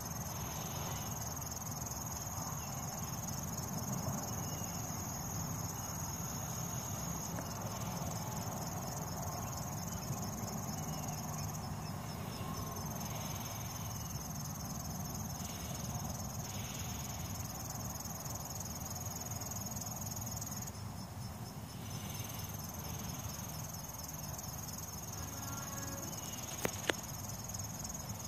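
A steady, high-pitched insect trill that stops briefly twice and resumes, over a low outdoor background hum. Two sharp clicks near the end.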